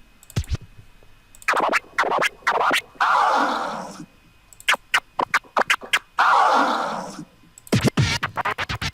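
DJ turntable scratch samples played one after another: short back-and-forth vinyl record scratches, some in fast runs of quick strokes, with brief pauses between samples.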